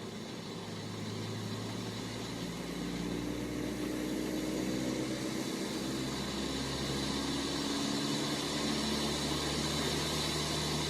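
Engine running at high revs, spinning a tire at very high speed, made up of several steady tones that shift in pitch. The sound grows gradually louder as the wheel is pushed faster.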